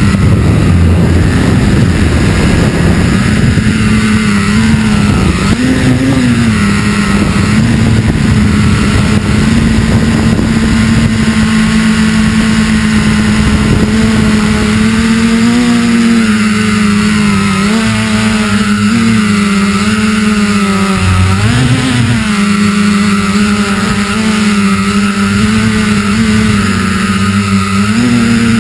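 FPV multirotor drone's electric motors and propellers heard from the onboard camera: a loud, steady buzz whose pitch rises briefly about six seconds in and again near the end, and sags for a few seconds in between as the throttle changes.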